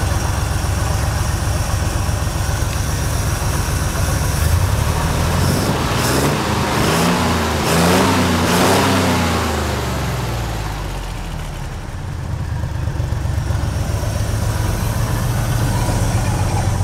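Buick 225 cu in Dauntless V6 with a single carburettor, idling, then revved several times by hand at the throttle linkage from about a third of the way in. It drops back to a steady idle after about ten seconds.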